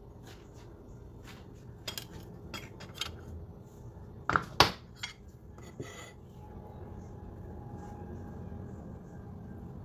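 Metal spoon clinking and scraping against a plate: a scatter of light clicks, with two sharp clinks about halfway through.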